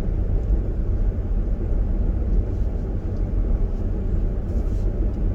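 Steady road rumble inside a moving car: engine and tyre noise, heaviest in the low end.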